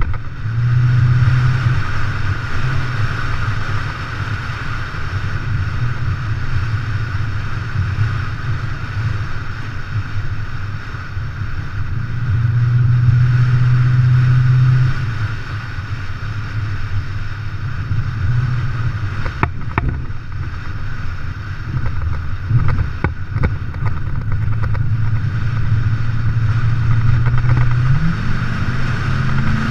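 A vehicle engine running under varying load while driving a rough dirt track, with a few sharp knocks and rattles in the middle and the engine note rising near the end.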